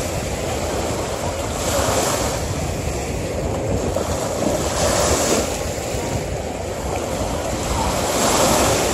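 Small sea waves washing up onto a sandy shore. The foamy hiss swells three times, about every three seconds, as each wave runs in.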